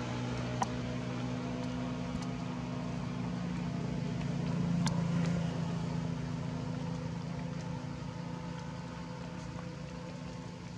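A motor engine droning steadily, swelling louder about four to five seconds in and then slowly fading, with a few faint clicks.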